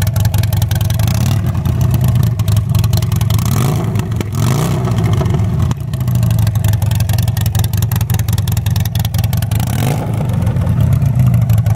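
Harley-Davidson Sportster 1200's air-cooled V-twin running through a custom exhaust, idling steadily, with the revs rising briefly about four to five seconds in and again near the end.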